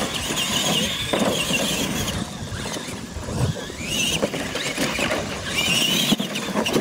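Electric R/C monster trucks racing over dirt, their motors and gearboxes giving a high whine that rises and falls with the throttle, over the hiss of tyres on dirt. A few sharp thumps as the trucks land off the ramps.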